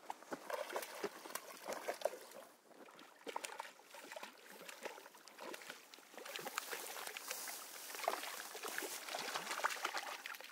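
Hooked brown trout splashing at the surface close to the bank as it is played in toward the net: a run of irregular splashes that gets busier and louder in the second half.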